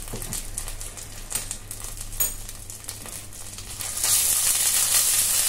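Whole spices and ginger paste frying in hot ghee and oil in a kadai, with faint scattered crackles. About four seconds in, the pan is stirred and the sizzle turns suddenly louder and steady.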